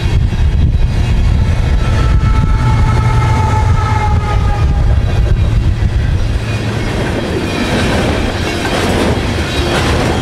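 Coal train's hopper cars rolling past at speed: a heavy rumble with clickety-clack of wheels on rail joints. A steady, slightly falling high tone sounds over it for a few seconds in the first half, and the rumble eases in the second half.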